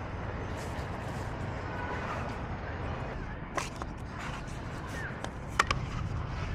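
Outdoor background noise with faint distant voices, and a few sharp clicks in the second half.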